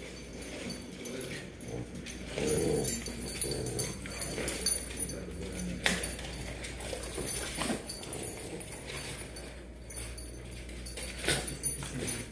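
Pit bull puppies whimpering and making play noises while tugging on a rope toy, with a couple of sharp clicks.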